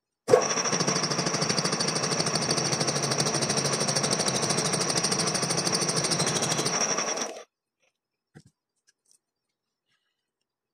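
A machine tool cutting teeth into a gear blank, running with a rapid even rattle of about ten strokes a second. It starts abruptly and cuts off after about seven seconds, leaving a few faint ticks.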